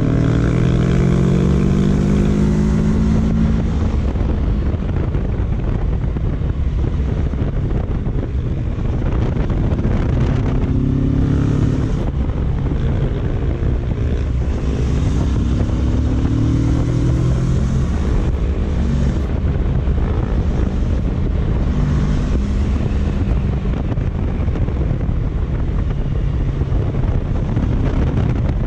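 Kawasaki Versys 650's parallel-twin engine pulling along the road, its pitch rising several times as it accelerates: near the start, about ten seconds in and about fifteen seconds in. Heavy wind buffeting on the microphone runs under it.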